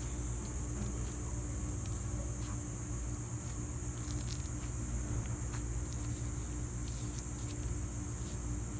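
Faint scattered small clicks of slime being squished and mixed by hand, over a steady low hum and high hiss.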